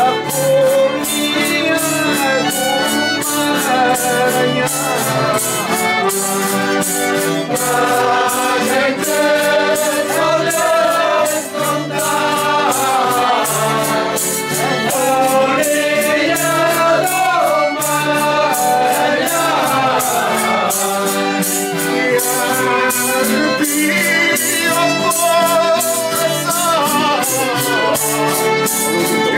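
A group of voices singing a traditional folk song together to accordion accompaniment, over a steady, quick percussion beat.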